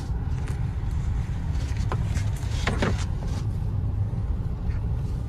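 Steady low rumble of a Maruti Suzuki Swift's engine and tyres, heard inside the car's cabin while driving, with a few short clicks. The clearest clicks come about three seconds in.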